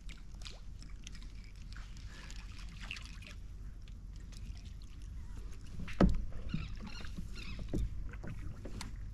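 Handling noise on a fishing kayak while a fishing reel is worked: a steady low rumble of wind and water, with scattered light clicks and ticks. A single loud thump comes about six seconds in, and a smaller one follows near the end.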